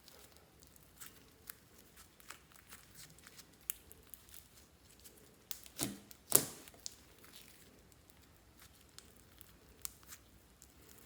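Fluffy slime being worked by hand, making scattered small crackles and pops, with two louder pops about six seconds in.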